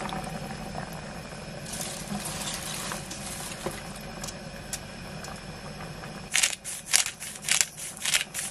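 Water pouring into a pot of sauce-covered vegetables, with chopped cabbage then dropped in on top. From about six seconds in comes a quick, irregular run of sharp clicks as pepper is added over the cabbage.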